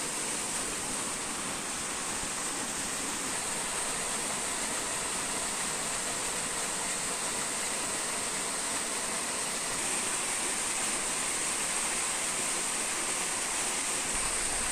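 Small waterfall splashing down a granite rock face into a stream, a steady rush of falling water.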